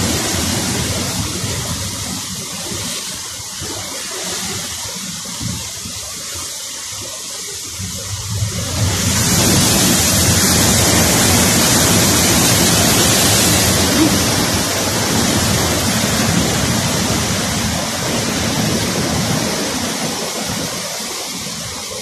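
Heavy storm surf surging and breaking against a seafront building, a continuous rush of churning water and spray. It swells sharply about nine seconds in as a big wave breaks, then slowly eases off.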